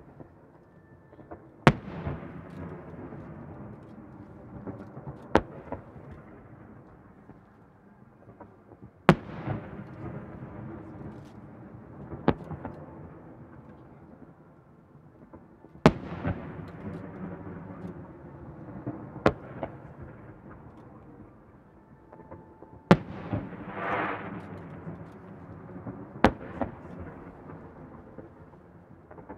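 Aerial firework shells going off one at a time: single sharp bangs about every three and a half seconds, each trailed by a long rolling echo.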